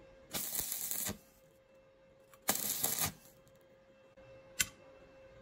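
Stick welding arc crackling in short bursts as tack welds are struck on steel: two bursts of under a second each, then a very brief one near the end.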